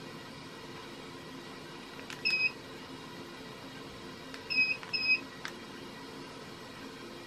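Fanimation Drone DC ceiling fan's receiver beeping in answer to the remote. There is one short beep about two seconds in, then two quick beeps in a row a couple of seconds later, with light clicks in between. Under it all is the steady hum of the running fan.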